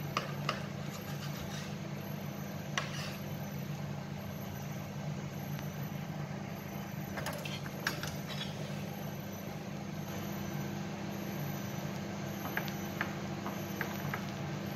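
A steady low hum throughout, with a few light clicks and taps of a knife and hands on a plastic cutting board as a soft microwaved eggplant is cut open and moved; the taps come singly near the start, in a short cluster about halfway through, and several more near the end.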